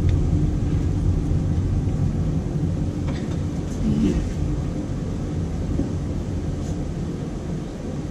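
Steady low rumble of background noise with a few faint clicks.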